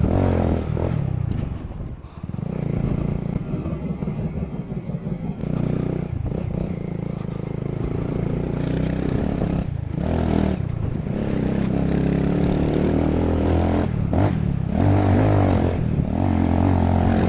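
Motorcycle engine running under way, the throttle opening and easing off; it drops away briefly about two seconds in, then picks up again.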